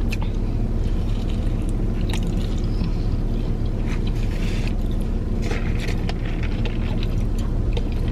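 Steady low hum of a car running, heard inside the cabin, with short clicks and crackles of someone biting and chewing a burger and fries.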